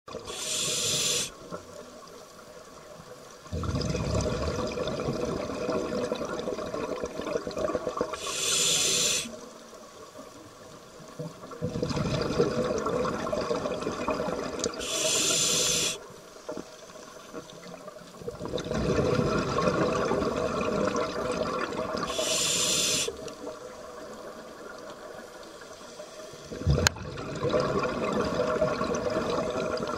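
Scuba breathing through a regulator underwater: a short hiss of inhalation through the demand valve, then a longer rush of exhaled bubbles, about four breaths at roughly one every seven seconds. A single sharp knock near the end.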